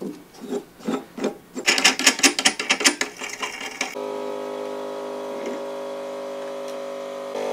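Metal parts of a cart's steering neck being handled, with scraping and a fast run of clicks as the headset is worked loose. About halfway through, a steady buzzing hum at one fixed pitch starts suddenly and runs on, a little louder near the end.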